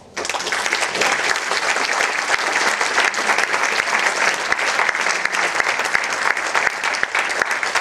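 Audience applauding, dense and steady, breaking out suddenly at the close of a talk.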